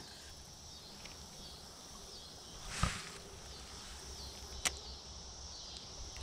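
A cast with a fishing rod: one quick swish about three seconds in, then a sharp click, over a faint steady chirping of insects.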